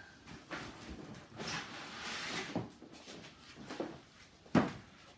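Cardboard box and its packing being handled: scraping and rustling as pieces are pulled about inside the box, with a few knocks and one louder thump near the end.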